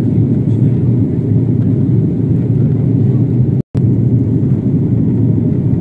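Airliner cabin noise in flight: a steady, loud, low rumble of engines and airflow heard from a passenger seat. It cuts out completely for an instant about two-thirds of the way through.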